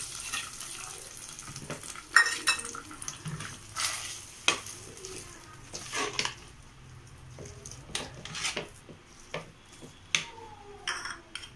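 Long metal spoon knocking, clinking and scraping against the inside of an aluminium pressure cooker as cooked rice-and-lentil pongal is stirred. There are irregular sharp knocks, the loudest about two seconds in.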